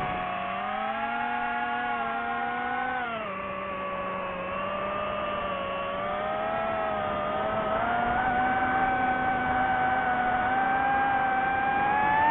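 DJI FPV drone's motors and propellers whining in flight, the pitch dropping about three seconds in, then climbing gradually through the second half as the throttle changes.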